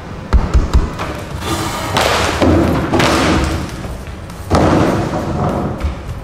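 Three or four quick heavy thumps about half a second in, followed by longer noisy stretches, with music under them.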